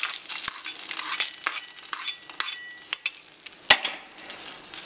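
Hot tempering of coconut oil, mustard seeds, dried red chillies and curry leaves poured into a stainless steel pot of yogurt curry, crackling and sizzling, then a steel spoon stirring the curry with sharp clinks against the pot and one loud knock near the end.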